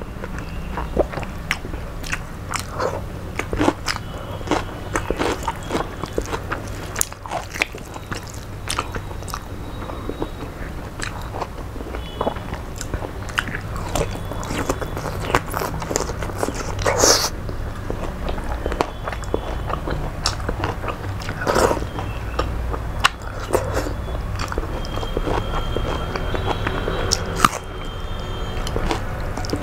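Close-miked chewing and biting as a meal of rice, curry and vegetables is eaten by hand, with many short mouth clicks over a steady low hum.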